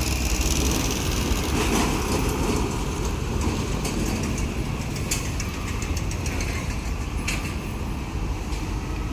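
Diesel engine of a State Railway of Thailand heavy track-maintenance vehicle running steadily while shunting ballast hopper wagons, with a few faint clicks.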